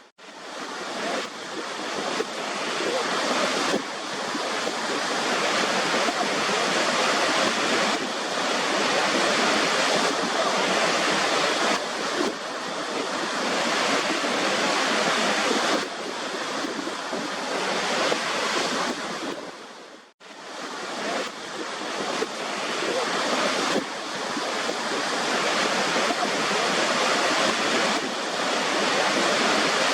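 Waterfall rushing in a steady, even hiss of falling water. It drops out for an instant about twenty seconds in and swells back up over a few seconds.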